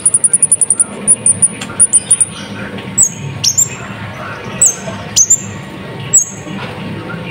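Sunbird (kolibri ninja) lure song. A rapid, very high trill stutters and breaks up over the first two seconds, then gives way to sharp high chips with a falling tail, about one a second.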